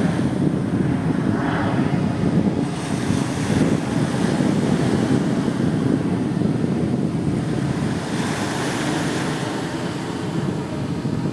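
Sea surf with wind buffeting the microphone: a steady low rushing, with waves washing in more brightly about one and a half seconds in, around three seconds, and again near eight seconds.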